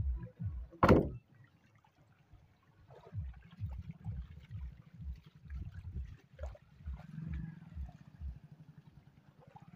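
Background electronic music with a deep, evenly repeating kick drum, breaking off briefly after a loud knock about a second in.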